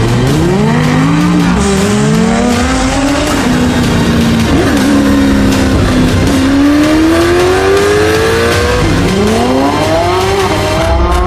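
High-performance sports car engine revving hard, its pitch climbing and dropping several times, with one long climbing pull in the second half.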